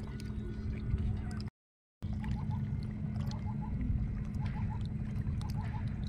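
Riverside ambience: a steady low rumble and hum, like a distant motor or wind on the microphone. It cuts out briefly about a second and a half in. After that, faint short chirps come in quick groups of two or three, about once a second.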